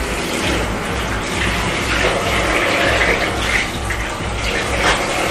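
Water running steadily from a tap while a small dog is being bathed.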